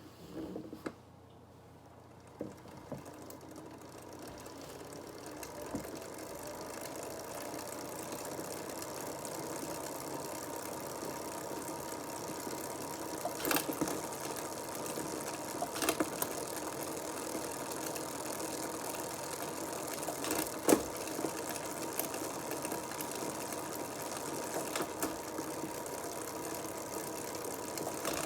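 SRAM Force AXS bicycle drivetrain running with a steady mechanical whir that builds up over the first several seconds, with scattered sharp clicks from about halfway: the unwanted noise from the drivetrain.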